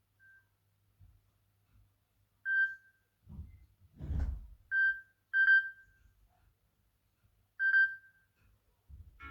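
Smartphone speaker sounding five short, high beeps at irregular intervals, one of them doubled, with a dull low rumble about four seconds in.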